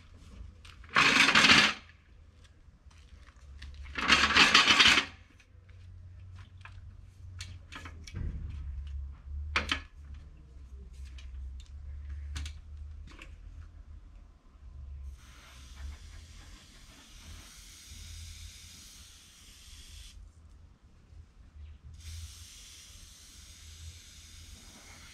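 Two short hissing bursts of an aerosol insecticide spray aimed at a wasp nest under the eaves, followed by scattered small clicks and knocks from an aluminium stepladder. A softer steady hiss takes over for the last several seconds, briefly stopping partway through.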